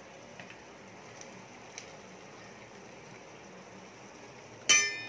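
A steel mesh strainer full of parboiled rice knocks once against the rim of the steel cooking pot about four and a half seconds in, a sharp clank with a brief metallic ring. Underneath is a faint steady hiss from the pot of water boiling, with a few light ticks of the strainer scooping.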